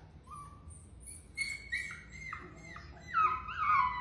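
Puppy whining and whimpering in its crate on its first night in a new home: a run of short high-pitched whimpers, louder toward the end, then long falling whines.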